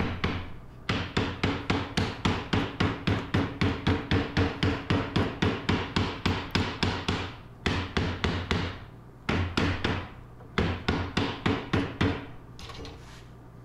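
A mallet rapping the hard maple breadboard end trim onto the end of a laminated maple bowling-alley countertop, seating it on the glued spline. Quick sharp knocks, about four a second, come in several runs with short pauses, and each knock rings briefly in the wood.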